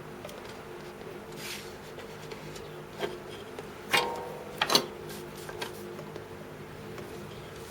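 A few light clicks and a short clatter of small tools and wires being handled during soldering work, the loudest about four seconds in, over a steady low hum.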